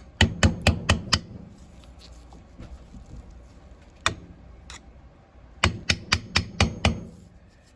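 Light, quick hammer taps seating an OEM camshaft into a Yamaha Warrior ATV's cylinder head: a run of about six taps, one lone tap about four seconds in, then another run of about six near the end.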